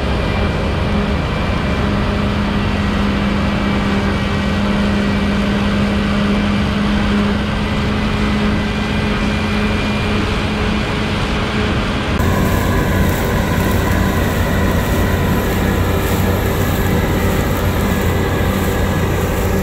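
Claas Lexion combine harvester running steadily under load while cutting wheat: a continuous engine and machinery drone. About twelve seconds in the sound changes abruptly and becomes hissier.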